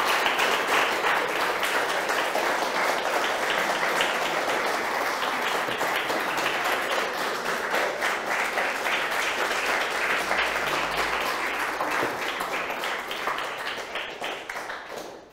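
An audience clapping, a dense steady applause that dies away near the end.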